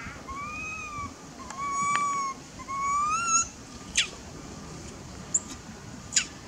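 Baby long-tailed macaque crying for milk: three drawn-out, arching whistled coos, then three short, sharp squeaks near the end.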